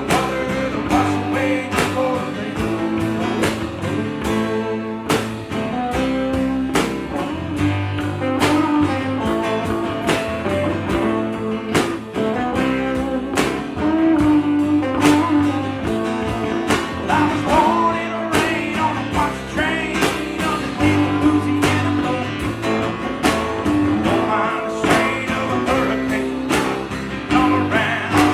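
Band playing a song, with guitar over a steady drum beat.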